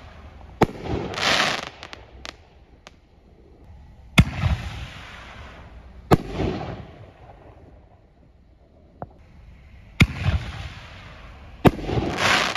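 Consumer canister firework shells (Winda Scatter Bombs) going off overhead. About five sharp bangs come a few seconds apart, each followed by a second or so of hissing from the swimming star tails and the breaks.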